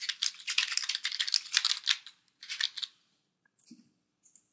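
Fast typing on a computer keyboard: a quick run of keystrokes for about two seconds, then a short burst more after a brief pause.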